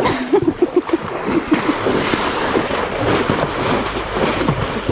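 Water splashing and sloshing in quick irregular strokes as a horse moves about in water, with wind on the microphone.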